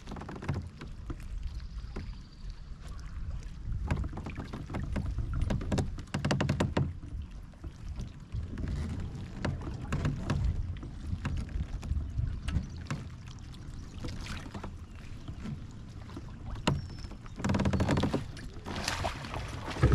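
Kayak paddling and handling sounds: a paddle dipping and splashing in the water, with scattered knocks against the plastic hull, over a low wind rumble on the microphone.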